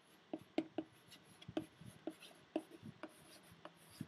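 Chalk writing on a blackboard: a run of short, irregular taps and scratches as the letters are drawn.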